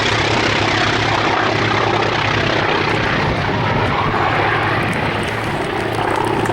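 Piston-engined propeller aircraft flying low past, a loud steady engine drone whose higher tones dull from about three seconds in as it moves away.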